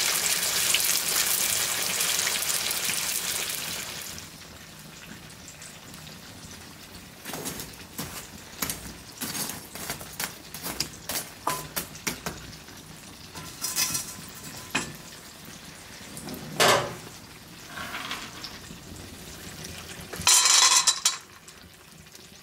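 Chicken legs sizzling in hot lard in a cast-iron pan, with a glowing coal laid in the fat. After about four seconds the sizzle gives way to scattered clicks and scrapes of a metal tool working the embers of a wood fire, with one louder knock, and a short loud rattle near the end.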